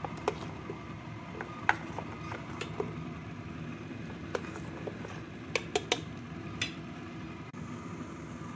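A metal spoon stirring a thick red date and brown sugar mixture in a stainless steel pot, with scattered sharp clinks as it knocks against the pot, including a quick run of three about five and a half seconds in. A steady low hum runs underneath.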